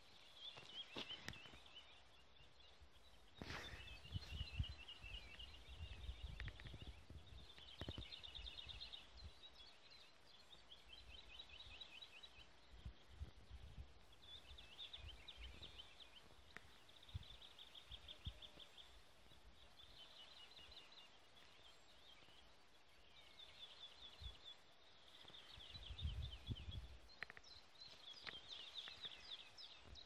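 Songbirds singing faintly, with short, quick, high trilled phrases repeated every second or two. Low rumbles and thumps break in a few seconds in and again near the end.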